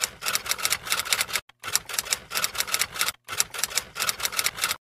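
Typewriter keystroke sound effect clacking rapidly as title text types onto the screen, in three runs of quick clicks with brief pauses between them.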